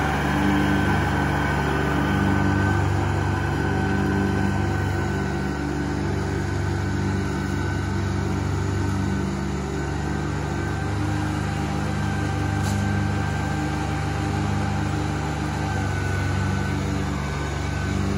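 John Deere 2210 compact tractor's three-cylinder diesel engine running steadily under mowing load, its mid-mount 54C mower deck engaged. A steady high whine sits above the engine note.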